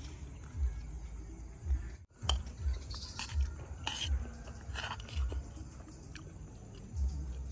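Eating sounds close to the microphone: chewing of rice and pickled egg, with a few short light clinks and scrapes of a metal spoon on a ceramic plate. The sound cuts out briefly about two seconds in.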